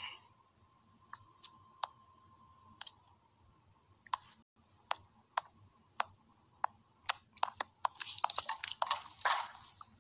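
Scattered sharp clicks and taps close to the microphone, a few each second, turning into a dense run of clicks and rustling about eight seconds in. A faint steady high tone sounds under the first three seconds.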